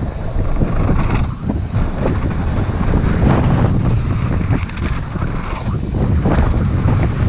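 Wind buffeting an action camera's microphone during a downhill mountain-bike descent on snow, with the bike rattling and its tyres rolling underneath.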